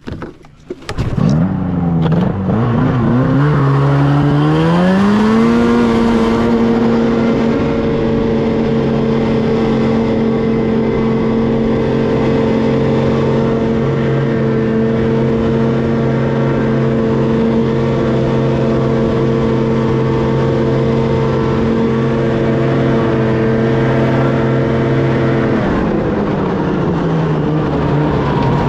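Snowmobile engine picking up about a second in and revving higher over the next few seconds. It then holds one steady tone at high throttle for about twenty seconds while the sled skims across open water, and eases off near the end as it reaches the gravel.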